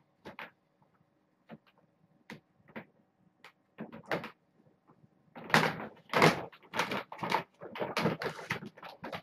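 Plastic cat food bag being handled: a few light taps and rustles, then from about five and a half seconds in a run of loud rustling as a hand goes into the bag for food.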